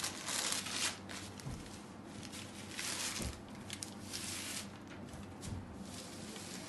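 Chiffon saree fabric rustling as it is unfolded and smoothed out by hand, in a few brief swishes, with a couple of soft bumps.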